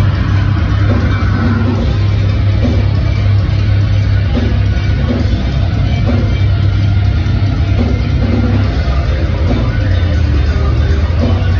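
Live metalcore band playing loud, with drums, guitars and heavy bass, heard from within the crowd.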